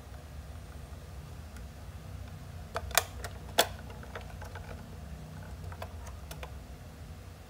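Hard plastic clicks and knocks from a toy garbage truck being handled and turned in the hands, with two sharp clicks about three seconds in, half a second apart, the loudest. A low steady hum lies underneath.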